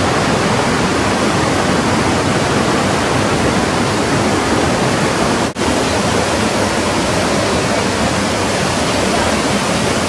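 Waterfall and the whitewater below it: a loud, steady rush of falling and churning water, cutting out for an instant about halfway through.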